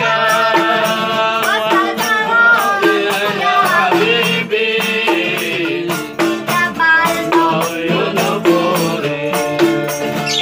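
A boy singing a sholawat, an Islamic devotional song, in a clear high voice, accompanied by strummed acoustic guitar and a small hand tambourine shaken in a steady rhythm.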